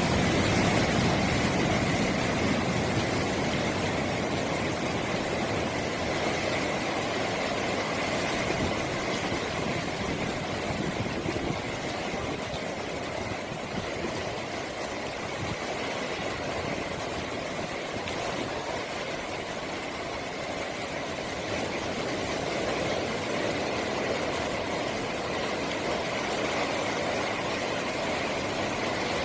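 Rough post-typhoon sea: heavy surf breaking continuously, with wind, a steady rush that swells and eases slowly.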